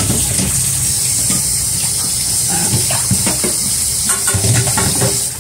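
Kitchen tap running in a steady hiss onto a perforated metal colander being rinsed in a stainless steel sink, with a few light knocks as the colander is handled.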